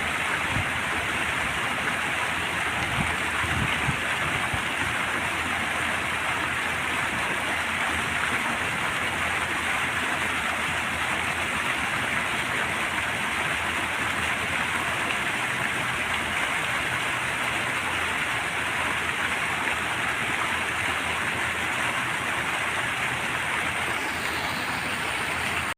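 Fountain water splashing and falling in a steady, unbroken rush.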